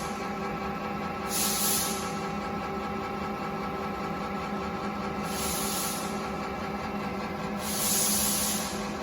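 Haas ST-30SSY CNC lathe running with a steady hum, broken three times by short bursts of hiss: about a second in, about halfway, and near the end.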